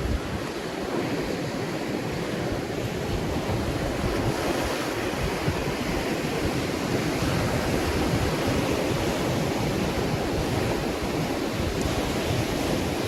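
Ocean waves breaking and washing on a shore, a steady rushing surf with wind buffeting the microphone.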